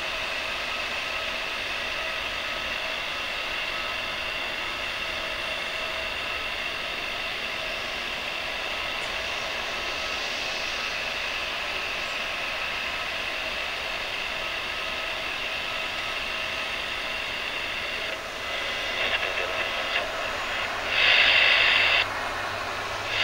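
Steady high turbine whine from an Airbus A320 during pushback. From about eighteen seconds in, short crackly bursts of airband radio cut in over it, the loudest lasting about a second near the end.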